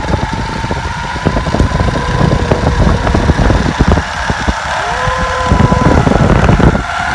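Wind buffeting the microphone during a zipline ride, with a steady whine from the trolley's pulleys running along the steel cable. The rumble grows louder through the ride and drops away just before the end.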